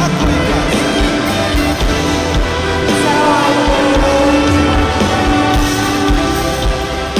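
Live band music with drum kit and electronic keyboard, a held melody line bending in pitch in the middle.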